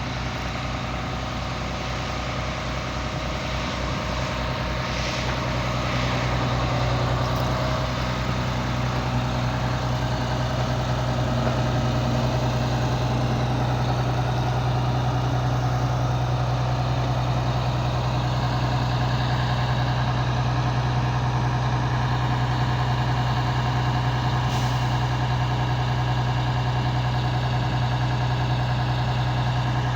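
Heavy engine running steadily, uneven and pulsing for the first several seconds, then settling to an even, slightly louder run.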